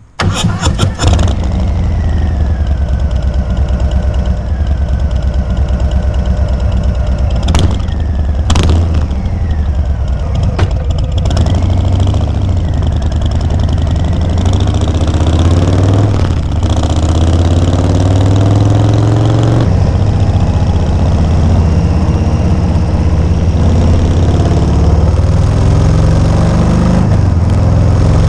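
Harley-Davidson Softail Standard's Milwaukee-Eight V-twin running loud through MCJ silencers, fitted with a Screamin' Eagle high-flow air filter (a stage 1 setup), while the bike is ridden. The deep exhaust pulse rises and falls in pitch with throttle and gear changes.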